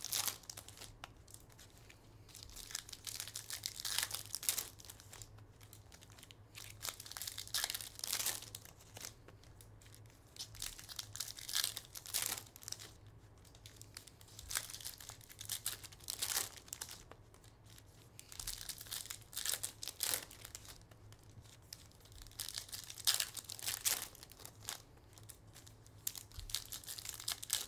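Bowman baseball card pack wrappers being torn open and crinkled by hand, in irregular bursts of tearing and rustling with short pauses between.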